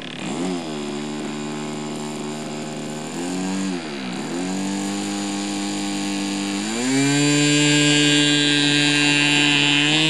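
Model airplane engine spinning its propeller: the pitch dips and comes back twice as the throttle is blipped, then at about seven seconds it is throttled up to a higher, louder steady pitch as the model begins its take-off roll.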